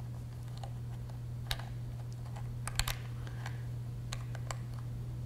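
Small plastic clicks and taps from the battery cover of an Amprobe TH-1 humidity meter being turned and pressed against the housing while its off-center tabs are lined up. A few sharper clicks come near the middle, over a steady low hum.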